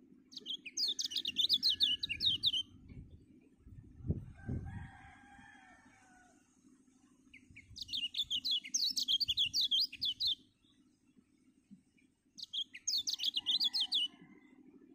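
Caged kecial (white-eye) singing three bursts of rapid, high twittering song, each lasting two to three seconds. About four seconds in there is a low thump and a fainter lower call.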